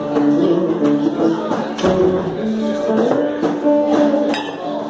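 Live Indian music: a melody of held notes stepping up and down in pitch, with a few sharp strokes, the clearest about two seconds in.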